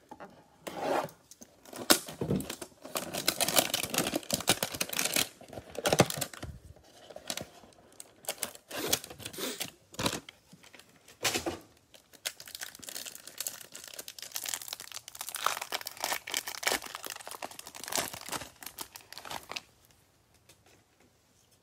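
Plastic wrapping on a trading-card hanger box and its stack of cards being torn open and crinkled by hand, in irregular crackling tears with sharp snaps, stopping about two seconds before the end.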